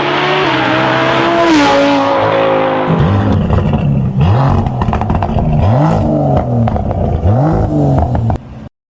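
Performance car V-engine exhaust: for about three seconds it runs at high revs with its pitch stepping as it climbs. Then come about six sharp throttle blips, each rev rising and falling, before the sound cuts off abruptly near the end.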